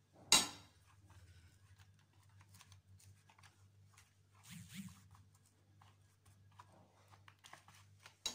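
Metal spoon pressing and scraping crumbly semolina sweet into a silicone mould: light scattered clicks and scrapes, with one sharp knock just after the start and another click near the end. A low steady hum underneath.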